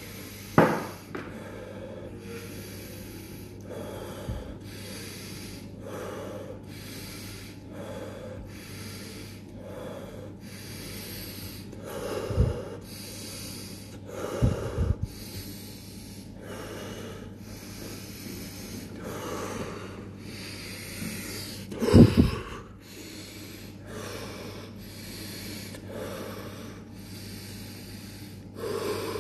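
A person doing a round of pranayama breathing: a steady run of forceful breaths, about one a second, for the whole round. A few louder low thumps break in, the loudest about 22 seconds in.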